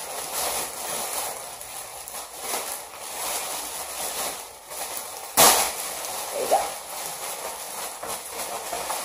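Plastic bubble wrap and packing tape crinkling and crackling as a parcel is unwrapped by hand, with one sharp snap a little past halfway.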